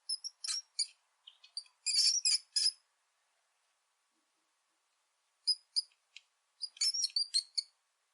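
Rat squeaking: quick, high-pitched chirping squeaks in two bouts, the second starting after a pause of about two and a half seconds.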